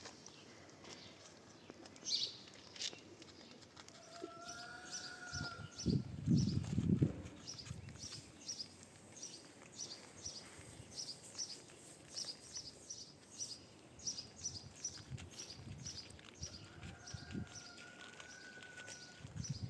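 Outdoor ambience with a bird chirping rapidly and repeatedly, about three short high chirps a second. Two longer, steady whistled tones sound once early and once near the end. A low rumble, the loudest sound here, comes about six seconds in.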